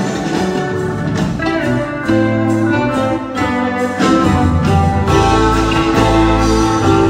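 Live band playing an instrumental passage: pedal steel guitar, acoustic guitar, electric bass and drums. The music swells louder about four seconds in.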